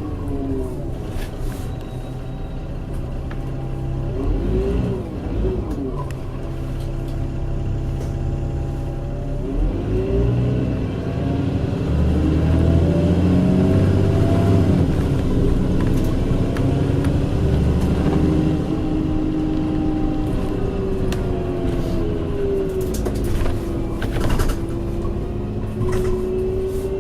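VDL DB300 single-deck bus under way, heard from inside: engine and drivetrain running with a strange tonal whine whose pitch keeps rising and falling with the bus's speed and load. A few short rattles near the end.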